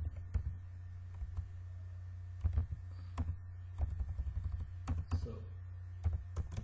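Computer keyboard typing: irregular keystrokes in short clusters, over a steady low hum.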